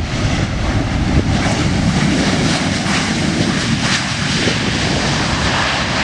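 Jet engines of a Boeing 737 airliner running at high thrust as it rolls past close by on the runway: a loud, steady roar that swells about a second in.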